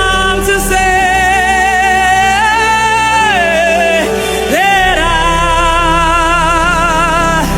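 Worship music: a singer holding long, wavering notes in phrases, over a steady sustained low accompaniment.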